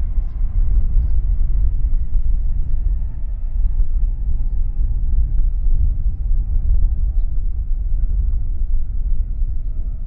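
Boeing 737-800 jet engines heard from behind as the airliner rolls away down the runway: a heavy, uneven low rumble with a faint engine whine that slowly falls in pitch as it recedes.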